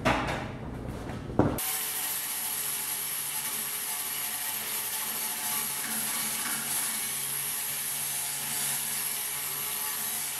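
Angle grinder grinding down fresh welds on an 18-gauge steel repair panel: a steady grinding hiss with a high whine that starts suddenly about a second and a half in, after a low rumble.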